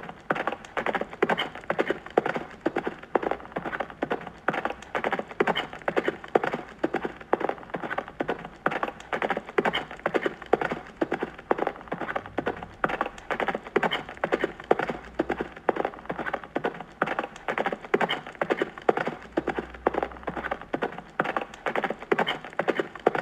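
Horse hooves clip-clopping in a steady, quick rhythm.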